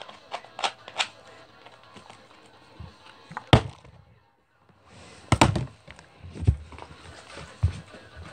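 A plastic soda bottle flipped and landing with a single sharp thunk on a carpeted floor about three and a half seconds in, after a few light taps of handling. Several heavier low thumps follow in the last three seconds.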